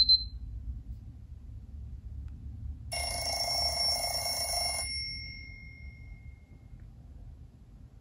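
Clock alert tone played through a Nokia phone's small loudspeaker: about three seconds in, a bright chime of several high tones sounds for about two seconds, then dies away with a ringing tail. A brief high beep sounds at the very start.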